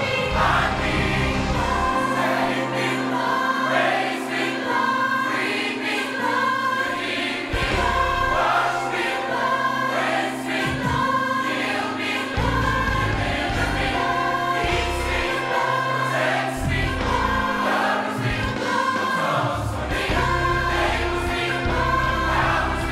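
Gospel choir singing over instrumental backing, repeating lines like 'the blood healed me, the blood delivered me'; the low bass drops out for stretches and comes back.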